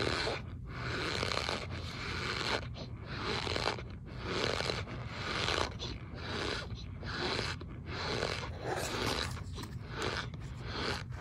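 A spoon pressing and scraping into packed cornstarch, giving a squeaky crunch about once a second, a dozen or so times.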